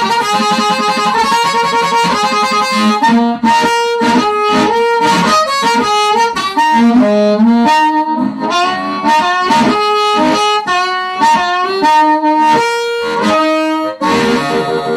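Hohner Special 20 diatonic harmonica in A-flat played through an Astatic T3 crystal-element harp mic and a Kalamazoo Model Two amplifier: amplified harmonica in quick phrases of single notes and chords, some notes bent in pitch, with a fuller held chord near the end.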